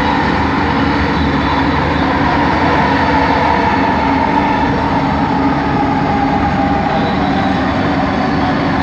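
Bombardier ART Mark II metro train's linear induction motors whining steadily over wheel and running noise, heard from inside the carriage while cruising. A steady tone near the middle of the range drifts only slightly lower.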